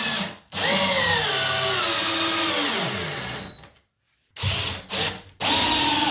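Power drill driving a long Torx screw through wooden cabinet face frames into a pilot hole, its motor pitch sinking steadily as the screw draws in and tightens, then stopping. After a short pause come two brief blips of the trigger, and near the end the drill runs again, starting the next screw.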